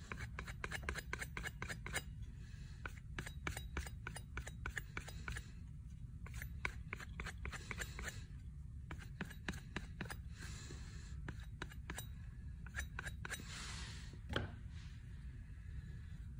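Knife blade being stroked quickly back and forth on a whetstone, a rapid run of scraping strokes in bursts with short pauses between them: light finishing passes at the end of sharpening.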